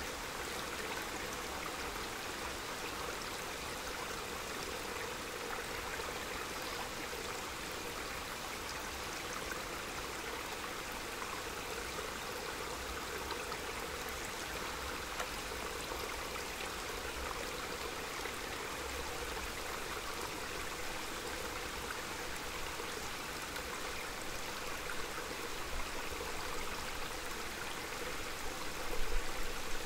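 Small mountain stream babbling steadily. Beneath it is a faint low rumble of wind that grows briefly louder near the end.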